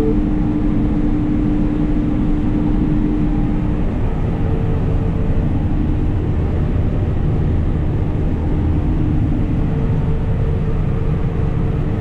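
Cotton stripper running steadily while harvesting, heard from inside the cab. Under the machine noise a steady hum stops about four seconds in.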